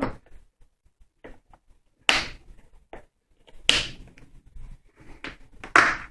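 Blow-molded plastic case of a Crescent CTK170CMP2 mechanics tool set being closed up: four sharp plastic clacks about one and a half to two seconds apart, with small clicks between.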